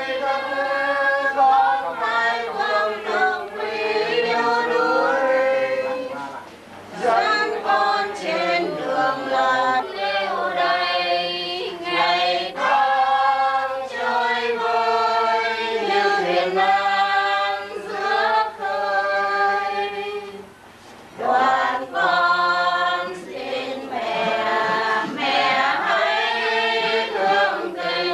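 Choir singing a slow funeral hymn without accompaniment, the voices holding long notes. It breaks off briefly twice, about six and a half and twenty seconds in.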